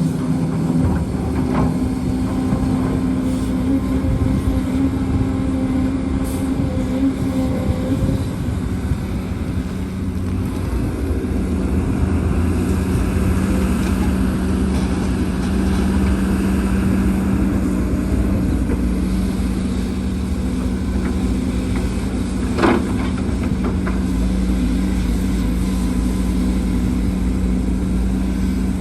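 Heavy diesel construction machinery running steadily. Its engine note settles to a lower pitch about a third of the way through, with a couple of sharp knocks.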